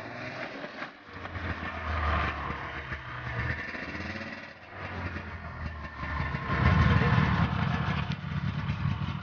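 A vehicle engine running, labouring louder and higher about six and a half seconds in, as if under more throttle.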